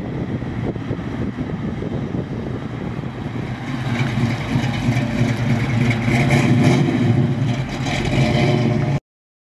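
A 1969 Chevrolet Camaro SS396's 396 big-block V8, through a header-back dual exhaust, driving past with a deep rumble that grows louder as the car comes close. The sound cuts off suddenly near the end.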